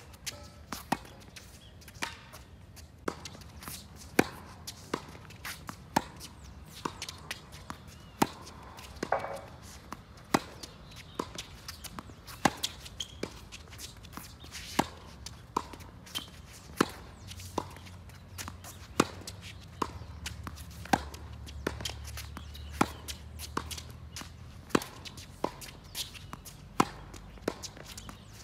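Tennis rally on a hard court: a steady back-and-forth of sharp pops as racket strings strike the ball and the ball bounces on the court, about one every second, the nearer player's hits loudest.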